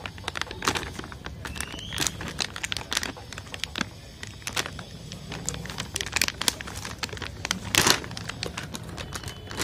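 Plastic bag of Purepet dry cat food crinkling and crackling as it is handled and torn open, with a louder, longer crackle near the end.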